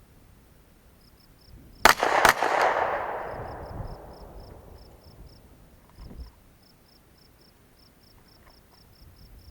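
A gunshot, then a second sharp crack less than half a second later, followed by a long rolling echo that fades over about two seconds. A smaller thump comes near six seconds in.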